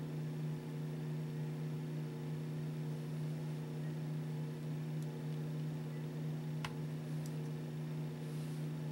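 A steady low hum over faint hiss, with one sharp click about two-thirds of the way through.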